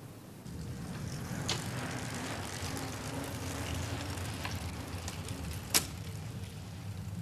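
Road traffic: a car engine running low, with a steady rumble of road noise. A sharp click comes near the end.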